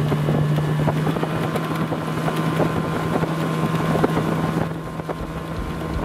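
Marlin 9.9 Pro outboard motor running steadily at speed, driving an inflatable boat across choppy water, with wind buffeting the microphone.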